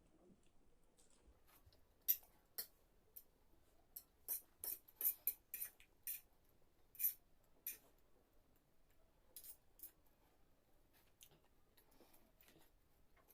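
Close-up eating sounds: a string of short, sharp clicks and smacks, thickest in the middle, with a few more near the end.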